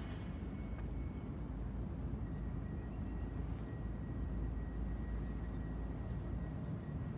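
CAF Urbos 100 tram standing at the platform, giving a steady low rumble with a thin steady whine from its onboard equipment that starts about two seconds in.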